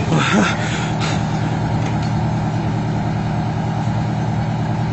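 A heavy vehicle's engine running steadily, a low even drone. Near the start, a brief pitched sound falls steeply away.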